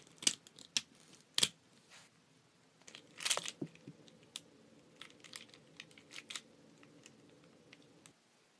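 Hands handling small objects: a few sharp clicks in the first second and a half, a louder crinkly rustle a little past three seconds in, then scattered faint ticks.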